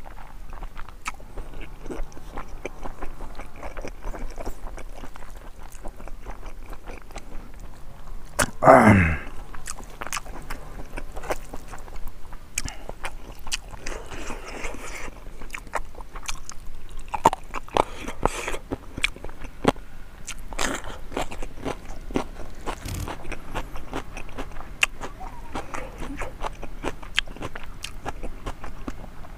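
Close-miked chewing of pig trotters and rice: wet mouth noises, lip smacks and many small clicks. One loud sound glides downward in pitch about nine seconds in.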